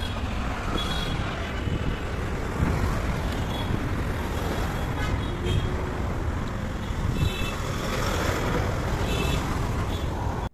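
Steady road traffic noise from passing cars and other motor vehicles.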